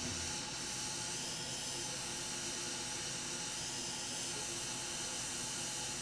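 Hot air rework station blowing a steady hiss of hot air onto a laptop motherboard MOSFET to melt its solder for removal.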